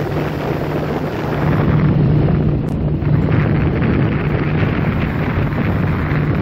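Motorboat engine running steadily as the boat cruises, a low steady hum, with wind buffeting the microphone; it grows a little louder about a second and a half in.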